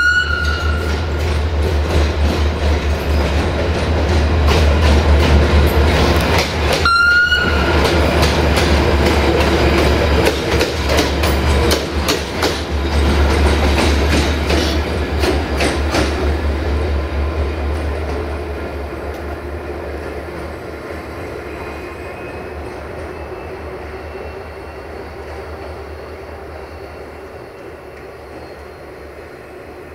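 Diesel-electric locomotive passing slowly while shunting: its engine runs with a deep steady drone and its wheels click over the rail joints. It is loudest from about four to sixteen seconds in, then fades as it moves away. There are two brief high-pitched sounds, one at the start and one about seven seconds in.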